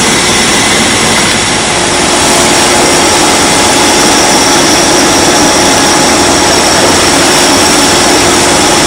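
A sailboat's engine running steadily while the boat motors along, with a constant rushing noise and a few steady tones; it gets slightly louder about two seconds in.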